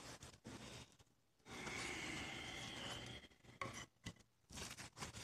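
Faint rubbing and handling of a freshly developed circuit board being dried with a paper towel. A steady breathy blow lasts about a second and a half, starting a second and a half in.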